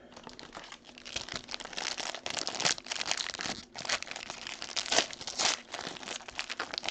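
Plastic wrapper of a trading-card pack being torn open and crinkled in an irregular run of crackles, loudest about a third of the way in and again past the middle.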